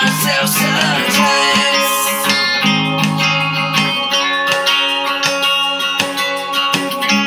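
Music: a guitar strumming chords in a steady rhythm.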